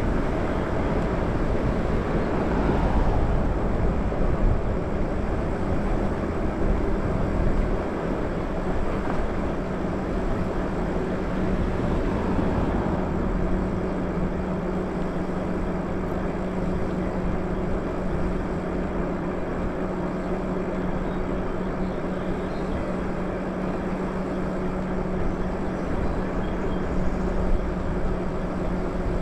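Riding a Lyric Graffiti e-bike: a steady rush of wind and tyre noise, with a steady electric-motor hum that becomes plainer about halfway through.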